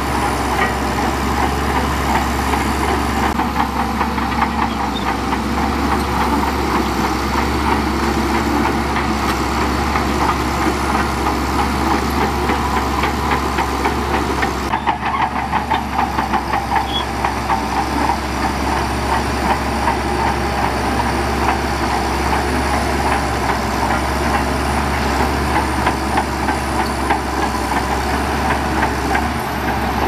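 Heavy diesel engine of earthmoving equipment running steadily, with a dense, rapid clatter. The sound changes abruptly about fifteen seconds in.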